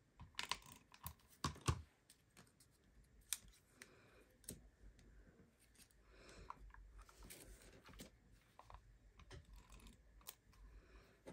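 Faint, irregular small clicks and light rustling of small cut paper pieces being handled and pressed onto a paper card.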